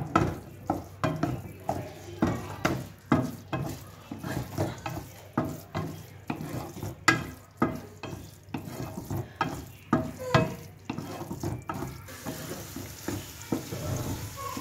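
Metal spatula scraping and knocking against a metal kadai, about two strokes a second, as crumbly egg halwa is stirred and roasted in ghee. The stirring eases off near the end.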